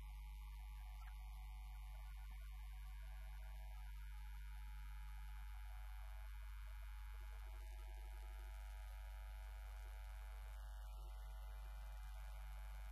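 Roland XP-50 synthesizer holding a steady low electronic drone: a hum with many overtones stacked above it. Its lowest part shifts about five and a half seconds in.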